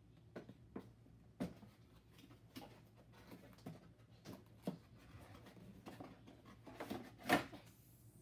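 Toy packaging being opened by hand: scattered light clicks and knocks of cardboard and plastic being handled, with a louder rustle or tear about seven seconds in.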